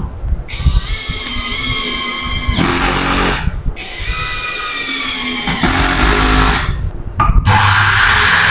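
Electric drill motor running as a homemade spindle sander, in several runs with a steady whine and short stops between them. The last run, near the end, is the loudest.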